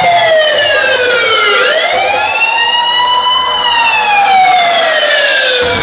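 A siren wail: one loud pitched tone with strong overtones that slides slowly down, rises again about two seconds in, then slides slowly down once more.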